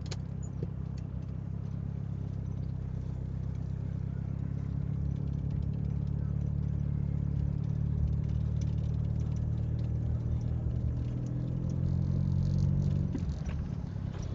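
A Honda car's engine heard from inside the cabin as the car pulls away slowly in traffic. It hums steadily, rises a little in pitch as the car gathers speed, then drops about a second before the end. A few light rattles and clicks come through the cabin.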